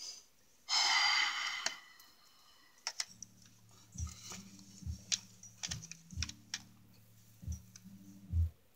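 A short loud rush of noise about a second in, then a low steady hum with scattered sharp clicks, like keys or a mouse being clicked.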